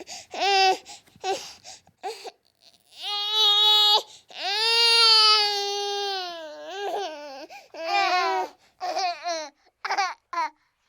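Baby crying: a few short fussy cries, then two long wails, the second held about two seconds and sliding down at its end, breaking into short sobbing cries.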